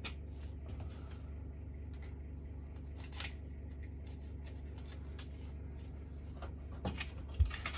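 Scissors snipping and the plastic sheet of adhesive window film rustling and crinkling as it is handled, in scattered short strokes over a steady low hum. A sharp knock near the end is the loudest sound.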